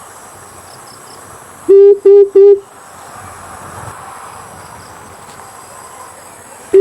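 Amethyst brown fruit dove calling: a quick run of three deep, even hoots about two seconds in, loud enough to clip, with the next run of hoots starting at the very end.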